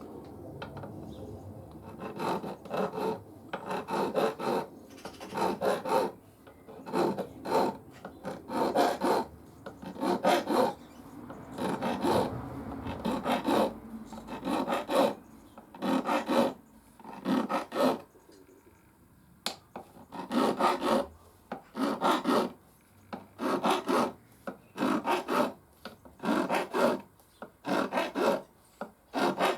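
Small flat file rubbed up and down along the bevelled fret edges of a guitar neck, taking off the tiny burrs. Repeated rasping strokes, roughly one a second, with a short pause about two-thirds through.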